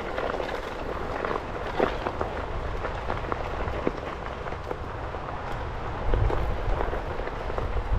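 Onewheel tyre rolling over a gravel path: a steady crunch made of many small stone clicks, over a low rumble that gets louder about six seconds in.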